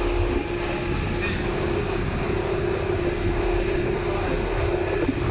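Outrigger boat's engine running steadily under way, a constant drone with a steady hum over a low rumble.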